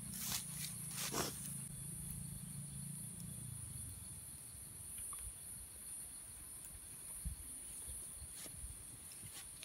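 Steady high-pitched drone of insects. A few short clicks come from hands handling the meat skewers, the loudest about a second in. A low hum fades out a few seconds in.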